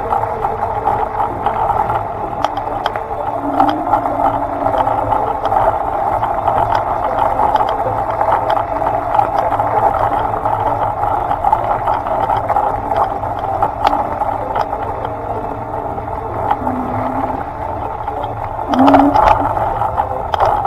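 Small vehicle riding over rough, potholed pavement: a steady running noise with rattling and scattered clicks from the bumpy road, growing louder near the end.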